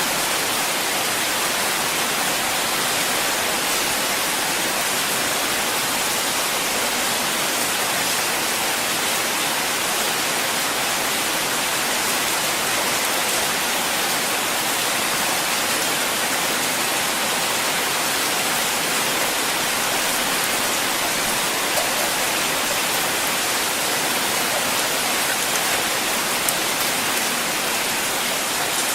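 Steady rain falling, an even hiss with a few faint drop ticks near the end; no thunder.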